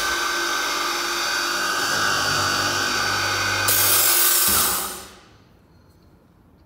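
Blum MINIPRESS PRO boring machine's drill motor running as its drill bits bore holes into a cabinet part, a steady whine over the cutting noise. About four seconds in the cutting sound changes, and the motor winds down and stops about a second later.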